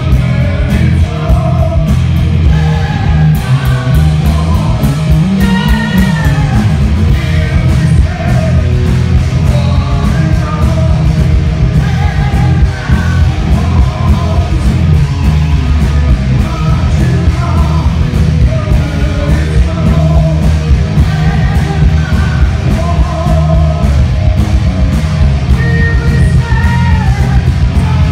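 Hard rock band playing live and loud: a lead singer over distorted electric guitar, bass guitar and drums, heard from the audience.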